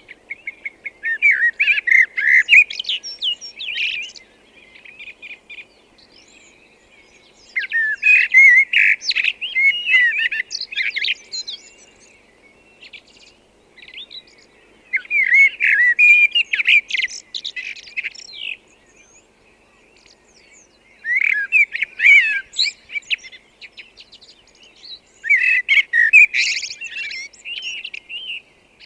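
Common blackbird (Turdus merula) singing: five warbled song phrases of about three seconds each, with pauses of a few seconds between them, over a faint steady background hiss.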